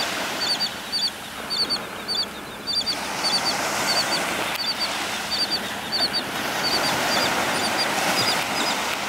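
Terns calling over and over, short high notes mostly in quick pairs or triplets about every half second, over a steady hiss of surf and wind.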